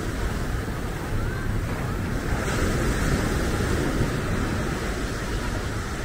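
Ocean surf washing onto the beach, a steady rushing hiss that swells briefly about two seconds in, with wind rumbling on the microphone.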